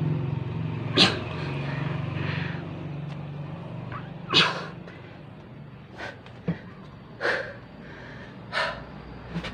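A man's sharp, forceful breaths out from the effort of push-ups, about four of them a few seconds apart. A low steady hum underneath fades out after about three seconds.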